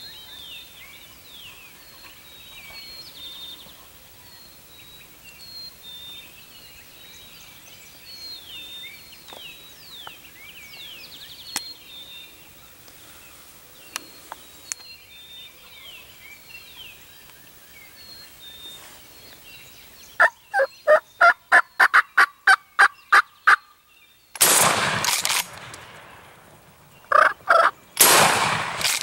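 Faint songbird chirps at first. About twenty seconds in, a turkey gives a quick series of about a dozen loud yelping notes. A shotgun fires a few seconds later, there is a short clatter, and a second shot comes near the end: the first shot missed the gobbler and the second brought him down.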